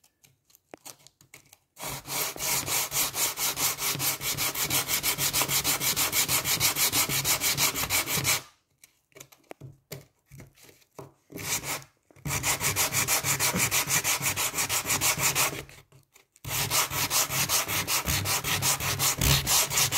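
Sandpaper on a sanding block being rubbed by hand back and forth over the curved molding of a solid oak door, about three strokes a second, with 60-grit paper. The strokes come in three runs, with short pauses about eight and sixteen seconds in.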